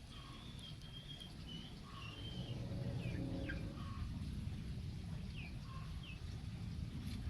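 Small birds chirping: a dozen or so short high chirps, several of them falling in pitch, over a steady low rumble.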